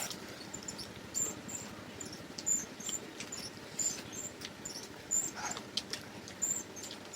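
Eating sounds: chewing, with faint, irregular small clicks and smacks from mouths and hands on food.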